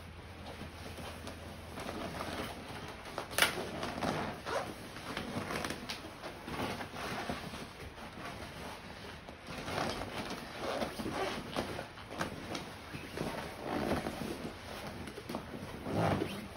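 Scuffing, rustling and dull thumps of a person grappling a grappling dummy on foam mats, with panting breath, and one sharp slap about three seconds in.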